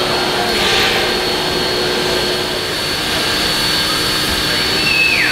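Victorian Railways Y-class steam locomotive Y112 hissing steadily as steam escapes around its cylinders. A short falling tone sounds near the end.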